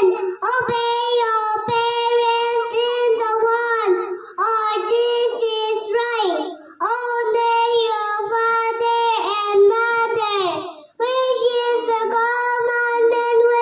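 A young girl singing solo without accompaniment, in long held phrases with short pauses for breath between them.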